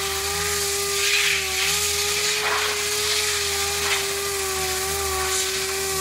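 Air-powered dual-action sander running at a steady speed and sanding a car body panel: a constant whine over the hiss of the pad on the paint.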